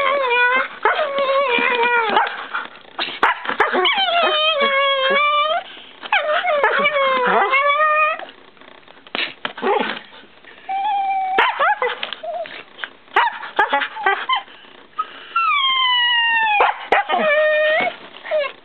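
A Shiba Inu making a string of strange howl-like, whining vocalisations while playing. Each call lasts a second or two and bends up and down in pitch, with short gaps between. Near the end come a couple of long calls that slide downward.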